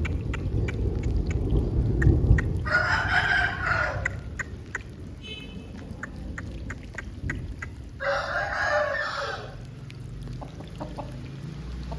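Aseel rooster crowing twice, about a second and a half each, a few seconds apart, with short clicks scattered between.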